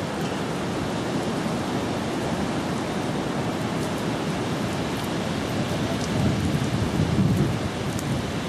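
Steady rushing noise of the seashore, swelling for a second or so about six seconds in.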